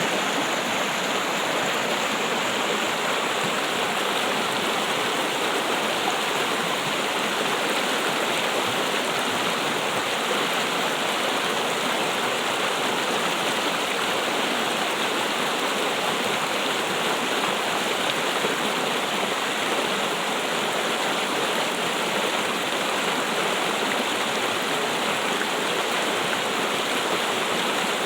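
Steady trickling water, an even rushing and babbling sound with no breaks.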